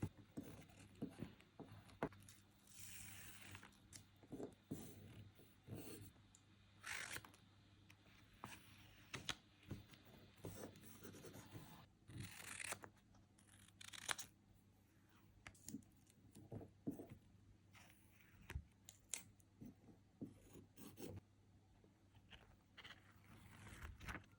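Quiet hand-crafting sounds of stickers and paper: scattered small taps and clicks, with a few short rustling peels or snips, over a faint steady low hum.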